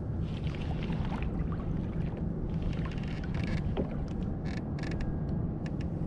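Low steady wind rumble on the microphone over water sloshing against a kayak, with scattered short clicks and taps.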